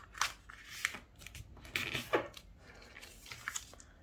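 A sheet of paper being folded in half and creased flat by hand: a few dry rustles and swipes of paper.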